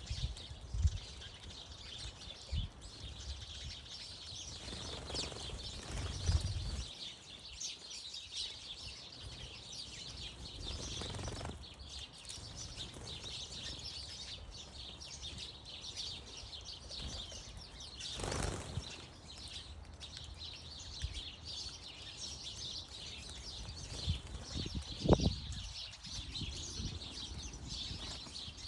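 Small garden birds chirping and twittering around bird feeders, with brief wing flutters and a few low thumps.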